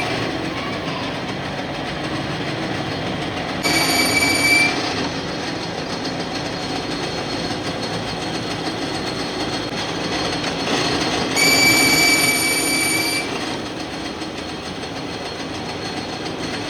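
Metalworking machine running with a steady mechanical noise, with a high-pitched metal squeal rising over it twice: for about a second, four seconds in, then for nearly two seconds, about twelve seconds in.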